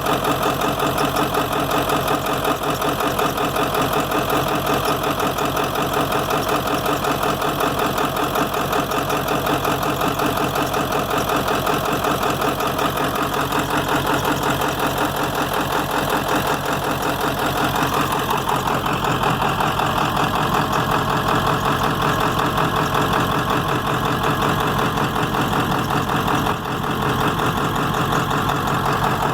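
7.3-litre V8 diesel engine idling roughly, with a steady, even rapid pulsing throughout; the rough idle comes with blowby.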